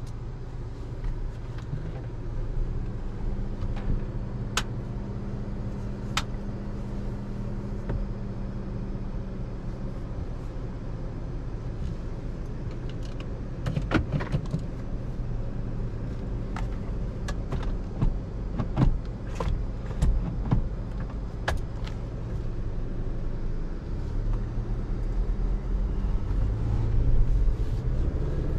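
Interior sound of a 2023 Chevrolet Colorado ZR2 pickup driving at low speed: its 2.7-litre turbocharged four-cylinder engine humming under road and tyre noise, with a scattering of sharp clicks and knocks. About four seconds from the end the engine note climbs and grows louder as the truck pulls away.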